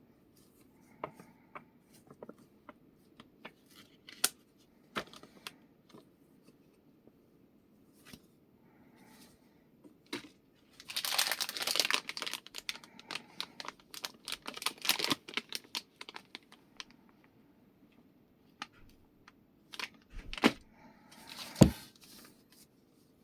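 Packaging being unboxed by hand: scattered clicks and knocks of handling, with stretches of tearing and crinkling of wrapping about halfway through and again near the end.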